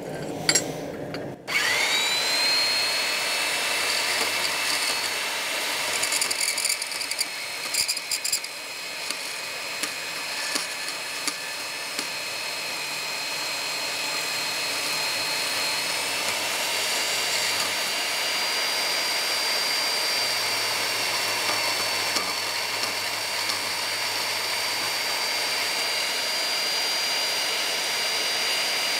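Bandsaw starting up about a second and a half in, its whine rising quickly to a steady pitch, then running while it cuts a forged strap of 1/8-inch mild steel flat bar. The sound is uneven and crackly between about six and twelve seconds in, then steady.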